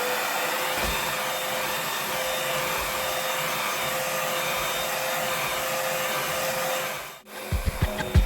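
Vacuum cleaner motor running steadily with a constant whine over its suction hiss, vacuuming up confetti. It cuts off about seven seconds in, and music starts near the end.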